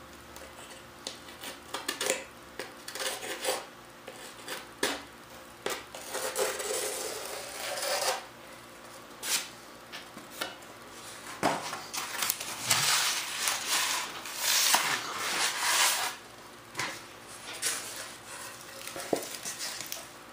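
Single-edge razor blade scraping and trimming excess fiberglass cloth and resin off the edge of a glassed wood-sheeted panel, in short, irregular scraping strokes with small clicks. The strokes come thickest in two runs, in the middle and the second half.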